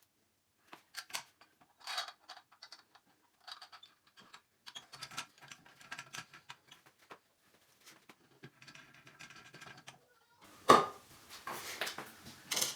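Shower valve parts being fitted back together by hand: scattered small clicks and light rattles, then a busier stretch of clinks with one sharp knock about ten and a half seconds in.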